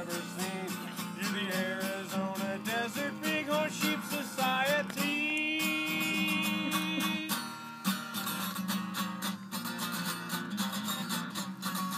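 Acoustic guitar strummed in a steady rhythm, with a melody line over it and one note held for about two seconds near the middle.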